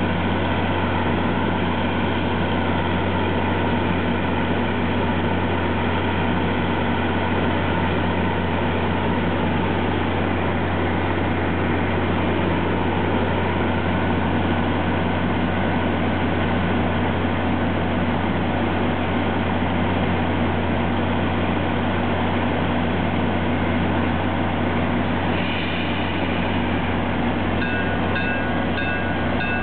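EMD GP40 diesel locomotive with a turbocharged 16-cylinder EMD 645 engine running steadily at the station, a constant deep hum. Near the end a bell starts ringing at an even rate.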